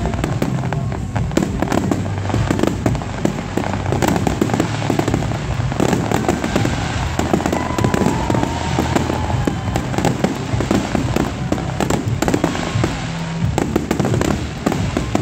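Aerial fireworks display: shells and low-level effects going off in rapid, overlapping succession, a dense continuous run of bangs and crackles.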